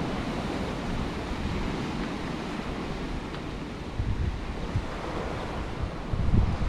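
Wind blowing across the microphone over the wash of sea water below, with heavier gusts about four seconds in and near the end.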